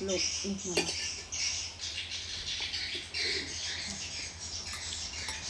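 Birds chirping steadily in the background, with a few light clicks of tableware, after a short spoken remark in the first second.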